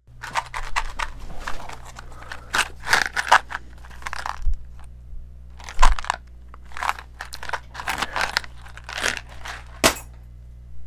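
Cardboard matchbox handled close to the microphone: irregular bursts of rubbing, scratching and crinkling, with one sharp click near the end.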